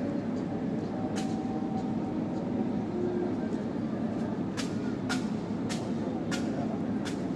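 Steady low mechanical rumble of a large passenger ship running at its berth. A sharp knock comes about a second in, then five more knocks roughly every half second near the end.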